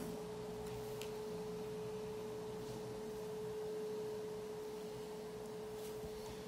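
A steady, single-pitched hum holding one constant tone, with a few faint light clicks of pencil and set square on the drawing board.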